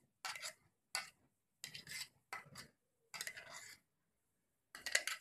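A metal spoon scraping thick wet onion and coriander paste out of a stainless steel mixer-grinder jar: about six short scrapes with brief pauses between them.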